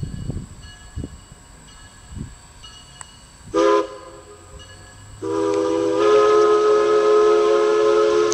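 Steam locomotive whistle: a short toot about three and a half seconds in, then one long blast of several notes sounding together. Some low thumps come before the whistle.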